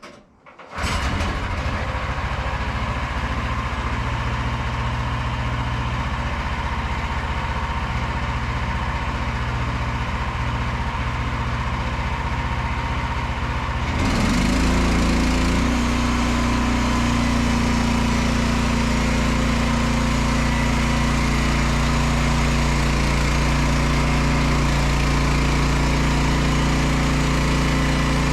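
Small petrol engine of a portable bandsaw sawmill comes in suddenly about a second in and runs steadily. About halfway through it steps up louder with a deeper, stronger hum, which then holds steady.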